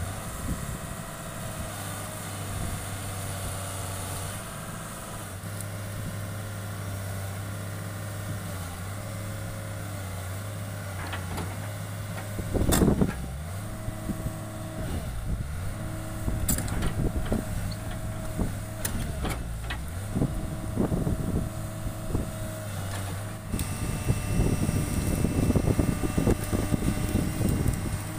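Hitachi excavator's diesel engine running steadily, its pitch stepping up and down several times as the hydraulics are worked. There is one loud metallic knock about halfway through and a few lighter knocks later, and the machine gets louder and busier near the end.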